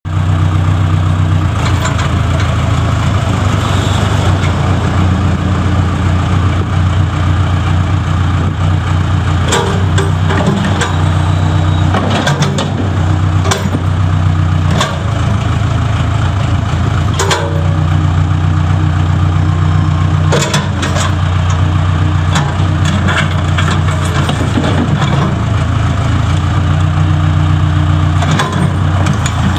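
Case 580K loader backhoe's 63 hp four-cylinder Case diesel running steadily at a constant speed, with a few sharp knocks scattered through it.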